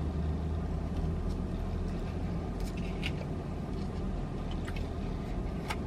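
Steady low hum inside a parked car, the idling engine or its fan, with a few faint short clicks scattered through.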